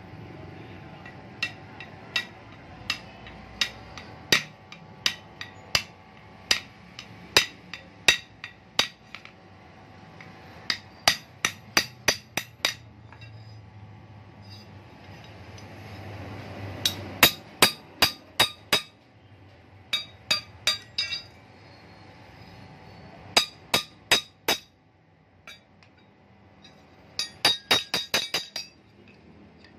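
Hand hammer striking a steel knife blade's tang on an anvil block: sharp, ringing metal-on-metal blows. Single strikes about a second apart give way to quick runs of four to six blows with pauses between, and the fastest run comes near the end.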